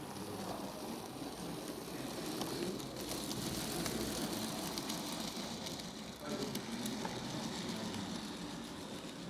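OO9 narrow-gauge model train running on the layout's track: a steady rattling clatter of small wheels and motor, louder through the middle, with faint voices behind it.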